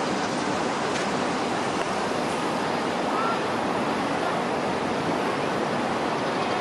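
Steady rushing rumble of a Hong Kong Light Rail Phase 1 car running away down the track as it leaves the stop, over city background noise.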